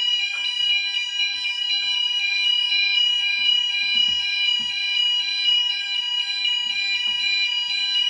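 Fire alarm sounding continuously after a manual call point was activated: several steady high tones at once, with no break.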